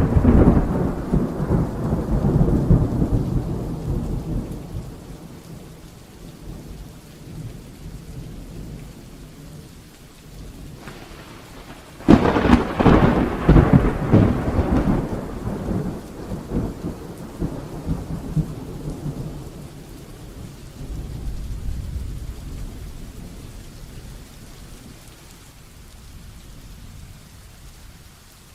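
Heavy rain falling steadily under thunder: a rumble rolls away over the first few seconds, then a second clap breaks sharply about twelve seconds in and rumbles on for several seconds before fading back into the rain.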